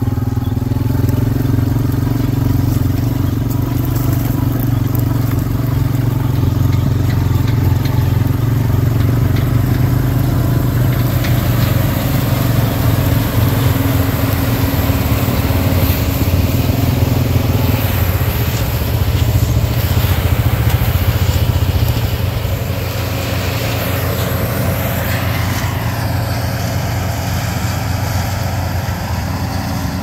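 New Holland combine harvesting soybeans: its engine and threshing machinery running steadily and loudly close by, growing somewhat quieter after about 22 seconds as it moves away.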